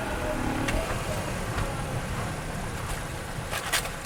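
Car on a test drive: steady low rumble of the tyres and running gear, with a few sharp clicks near the end. No brake squeal or grinding is heard, as the worn pads that were scraping the disc have just been replaced.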